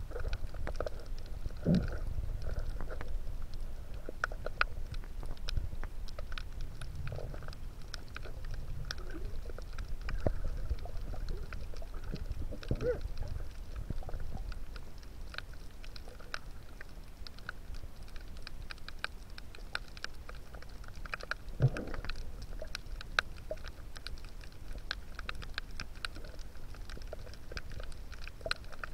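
Underwater ambience heard through a submerged camera: a steady crackle of many small sharp clicks over a low rumble, with two duller knocks, one about two seconds in and one about two-thirds of the way through.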